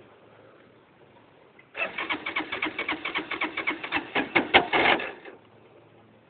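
Lifan LF200-III motorcycle's 200 cc single-cylinder engine cranked on the starter for about three and a half seconds, chugging at about eight or nine beats a second without firing, then stopping: the bike won't start.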